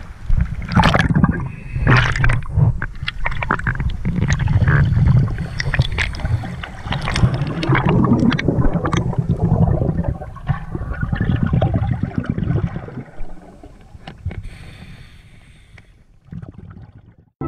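Water splashing and muffled underwater gurgling of scuba bubbles as a diver goes under, with a heavy low rumble and many knocks on the camera. It fades out over the last few seconds.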